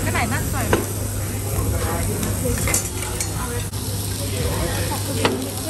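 Pork belly, beef and vegetables sizzling on a tabletop Korean barbecue grill, a steady hiss over a low hum, with a few sharp clicks, about three in all.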